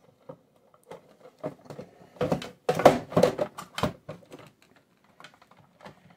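12 V 7 Ah sealed lead-acid batteries being slid into the battery compartment of an Eaton 5E UPS: a run of knocks, clicks and scraping of the battery cases against the housing, loudest about two to four seconds in, then a few lighter taps as they are pushed home.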